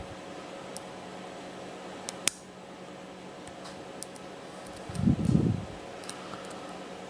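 Lock pick and tension wrench working the spool pins of a Master Lock No. 575 padlock: scattered small metallic clicks and taps, with one sharper click about two seconds in. A brief low hum of a voice about five seconds in, over a steady background hum.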